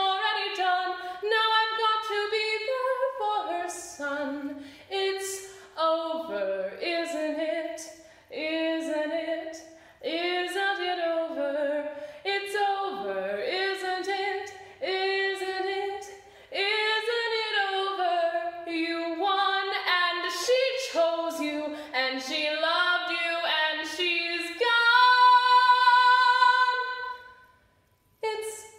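A woman singing a cappella, one unaccompanied solo voice. Near the end she holds one long note for a few seconds, then breaks off briefly.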